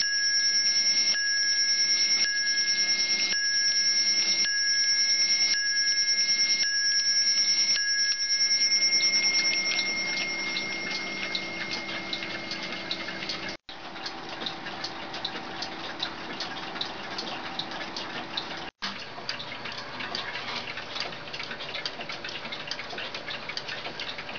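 Telavox electric clock striking the hour on its round metal bell: about nine strokes, roughly one a second, each ringing on, the tone fading out over a few seconds after the last stroke. The strike sounds harsh because the camera's microphone distorts it. After that, clocks ticking with quick small ticks.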